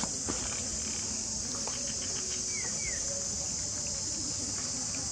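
Steady high-pitched chorus of insects, with a few faint ticks near the start and two short falling chirps about halfway through.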